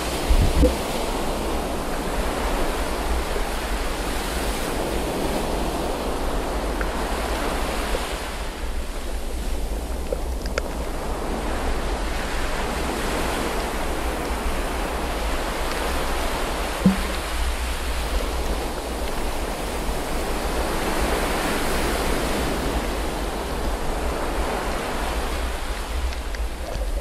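Underwater water noise through a submerged action-camera housing: a steady muffled rushing hiss over a deep rumble, swelling and fading every few seconds. A couple of brief knocks, one about half a second in and one past the middle.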